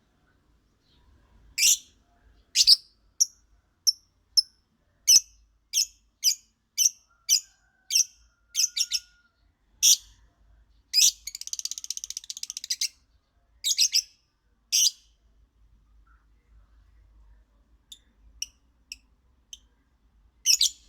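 Lovebird singing: a run of sharp, high chirps about two a second, broken midway by a rapid buzzing chatter lasting about two seconds, then a few more chirps and some fainter ones near the end.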